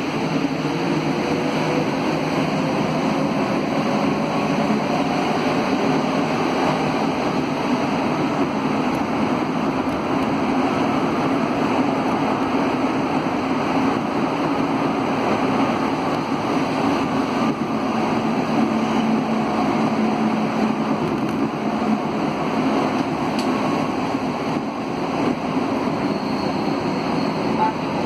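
Alsthom NS 74 rubber-tyred electric metro train running at speed through a tunnel, heard from inside the car: a steady rush of tyre and running noise with a faint low motor hum.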